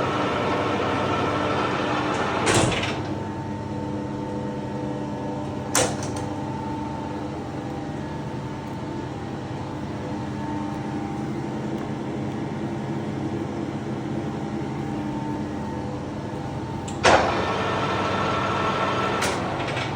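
Colchester Triumph 2000 lathe's oil-bath geared headstock running steadily with a layered hum of gears. A clunk a few seconds in is followed by a quieter, changed note, and another short knock comes soon after. A louder clunk late on is followed by louder running, then one more knock.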